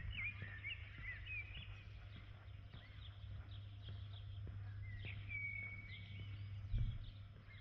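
Footsteps at an even walking pace, about two a second, with birds chirping over a steady low hum. One chirp is held longer about five seconds in, and there is a single thump near the end.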